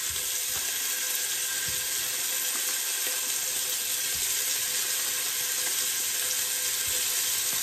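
Hot vegetable oil sizzling steadily in a pot as raw sirloin pieces are laid in one by one to brown.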